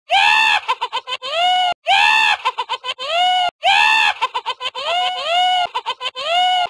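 Chicken squawking and clucking sound effect, played loud in a loop. The same run of short calls, each rising and falling in pitch, repeats about every two seconds.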